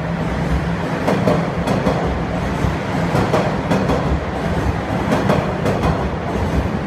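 Toronto subway train running on the rails: a steady rumble with the wheels clacking over rail joints.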